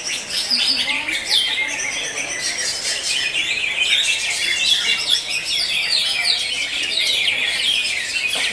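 Caged green leafbird (cucak hijau) singing a fast, continuous run of chirps and whistles, with other caged songbirds singing at the same time.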